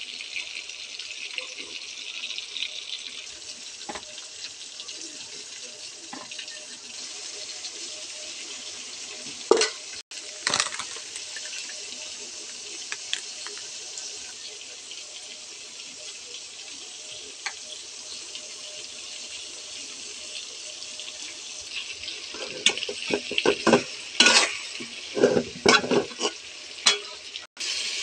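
Fish and onions frying in hot oil in an aluminium pot: a steady sizzle. A metal spatula scrapes and clatters against the pot about a third of the way through, and again in a run of strokes near the end.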